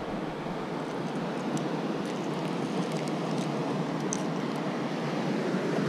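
Steady wash of low surf and wind, an even hiss, with a few faint metallic clicks as pliers work a topwater lure's hooks free from a fish's mouth.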